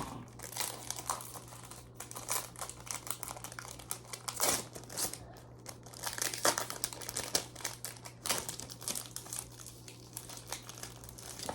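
Foil Pokémon card booster pack wrappers crinkling and tearing as packs are handled and opened, in irregular crackly bursts.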